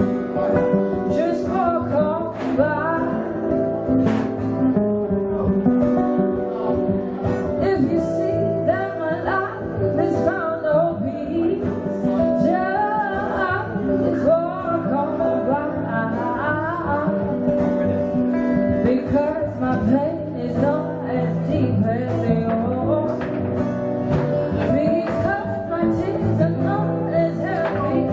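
Live acoustic music: two acoustic guitars played together, with a woman singing over them.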